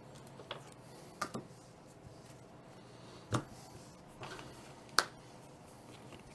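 Cards and game pieces being handled on a tabletop: about half a dozen light taps and clicks, the sharpest about five seconds in.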